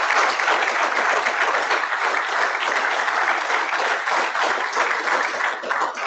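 Audience applauding, a dense steady clapping that thins out into separate claps near the end.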